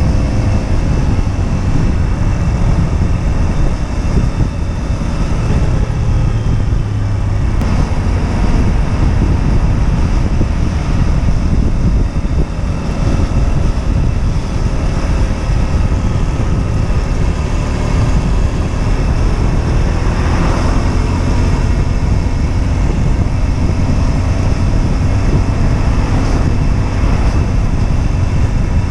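Husqvarna Svartpilen 125's single-cylinder four-stroke engine running on the move, its pitch rising and falling as the revs change, with a heavy low rumble of wind on the microphone.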